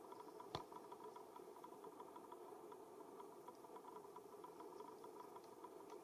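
Near silence: a faint steady background hum with faint, evenly repeating ticks, and one sharp click about half a second in.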